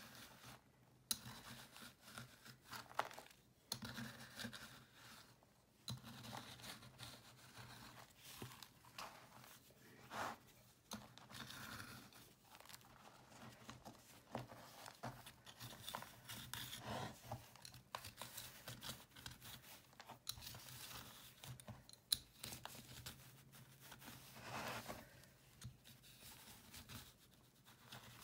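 A metal vegetable peeler shaving a dried, chalky cleaning-paste cake. Repeated soft, irregular scraping strokes crunch through the crumbly surface as chunks and powder break off.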